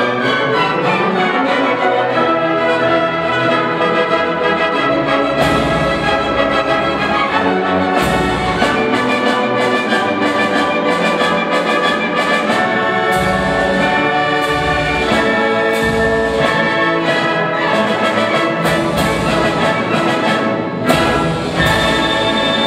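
A full youth symphony orchestra playing a Hungarian march loudly: violins and other strings with prominent brass, punctuated by heavy percussion strokes.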